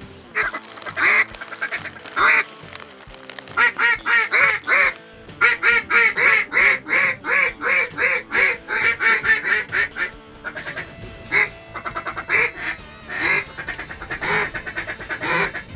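Mallard-type quacking in long, fast runs of about three quacks a second, over background music.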